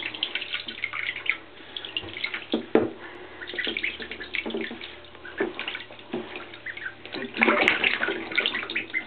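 Ducklings splashing as they paddle and dive in shallow water in a plastic tub: irregular small splashes and sloshing, busier and louder near the end.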